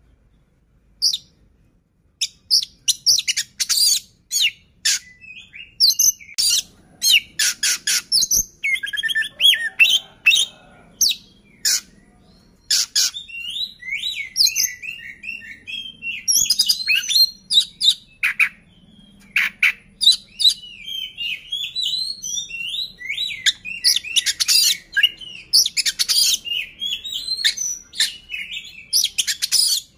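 Oriental magpie-robin (kacer) singing, starting about a second in: a fast run of sharp, clipped high notes mixed with quick warbled, gliding whistled phrases.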